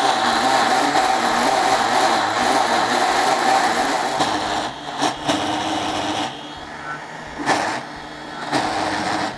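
Countertop blender running at high speed on a thick load of soaked cashews and coconut cream, churning them into a paste. The motor drops in level about four and a half seconds in and again after six seconds, with a couple of knocks, then comes back up near the end.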